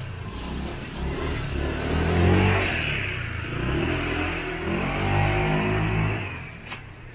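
Motor scooter engine running and revving as it rides past close by, its pitch rising and falling, then dying away about six seconds in.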